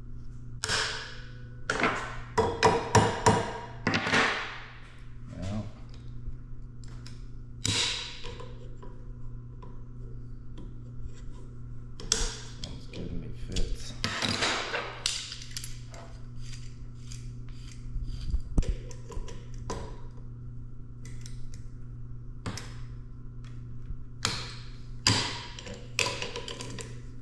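Hand tools working a large steel snap ring into its groove on a Case XT drive motor shaft clamped in a vise: irregular metallic taps, clicks and knocks, with a few longer scrapes, over a steady low hum.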